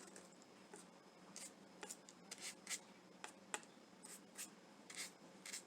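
Paintbrush brushing and dabbing paint into the edges and crevices of a small cutout heart: faint, short scratchy strokes, about a dozen at an uneven pace.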